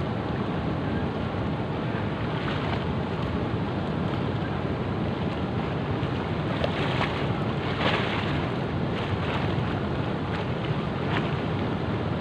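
Steady wind buffeting the microphone, with a few short rustles and clicks, loudest about eight seconds in, as hands work a treble hook out of a fish among dry reed stalks.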